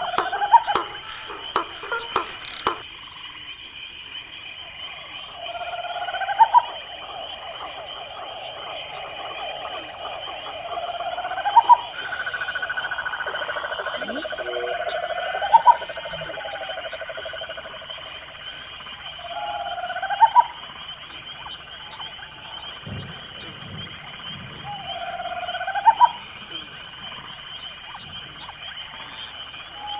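Night chorus of crickets: a dense, steady high-pitched trill. Over it, a whistled call that slides upward repeats about every five seconds.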